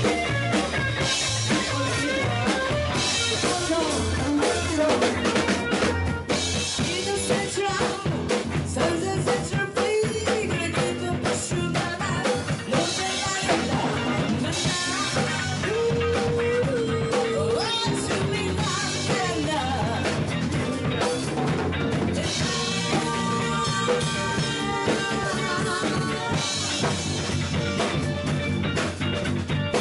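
Live rock band playing: drum kit, electric bass and guitar, with a woman singing lead into a microphone.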